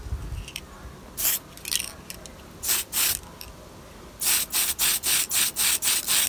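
Tamiya aerosol spray paint can hissing in short bursts as it lays a coat of gunmetal paint on a plastic model. There are a few separate puffs, then from about four seconds in a quick run of about four short bursts a second.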